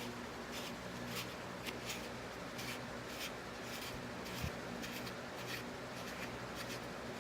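Faint, scattered light ticks and scrapes of the small parts of an action camera's switch assembly being handled and turned by hand, over a low steady hum.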